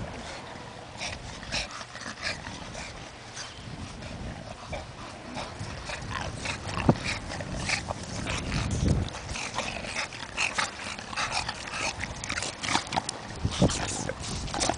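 English bulldogs rolling and wriggling on their backs in dry grass: a run of short rustles and scrapes, with small noises from the dogs and a few dull thumps.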